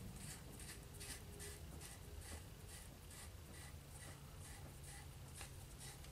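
Faint, evenly repeated rasping, about two or three strokes a second, as a moderator is twisted by hand back onto the threaded barrel of a Crosman 1377 air pistol.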